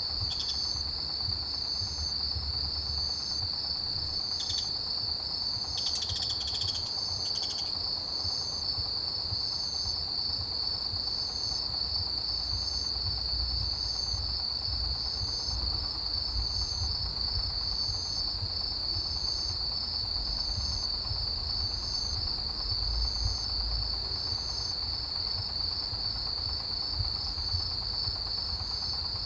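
Autumn grass insects, crickets among them, calling in chorus: one continuous high trill, with a second insect chirping at an even pace about once a second. A low rumble runs underneath.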